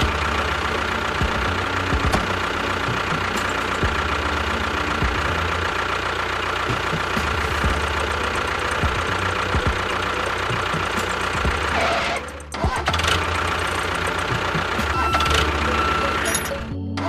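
A motor or engine running steadily with a dense, knocking-like texture, cut off briefly about twelve seconds in and again near the end.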